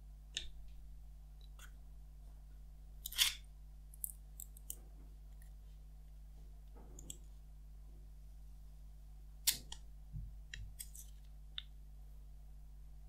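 Scattered small clicks and plastic crinkles of the Apple 18 W USB-C power adapter being handled and its clear protective film peeled off, with two louder crinkles about three and nine and a half seconds in.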